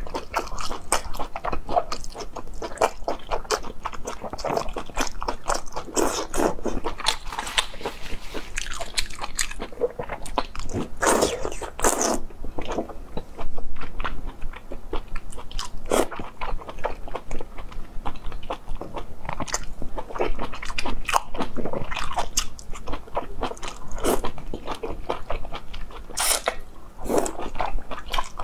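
Close-miked chewing and biting of braised intestines, a run of wet, squishy mouth noises and small clicks.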